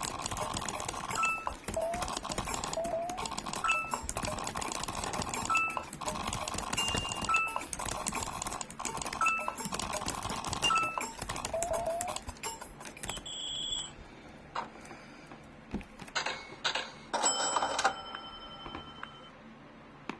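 Computer keyboard keys clicking in quick succession, with a short two-note electronic beep about every two seconds over a steady background tone. About 13 seconds in, the clicking stops and a few separate electronic chimes and tones sound.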